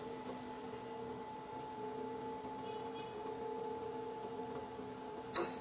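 A metal air nozzle snaps onto the magnetic top heating head of a hot-air rework station: one sharp metallic click with a brief ring near the end, over the station's steady hum.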